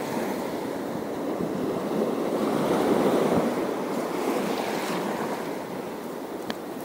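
Sea waves washing and surging, with wind on the microphone; the wash swells about two to three seconds in. A short click near the end.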